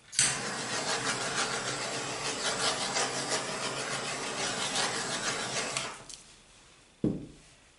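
Handheld torch flame hissing steadily over wet acrylic paint for about six seconds, heating the pour to bring up cells, then cutting off. A brief thump follows about a second later.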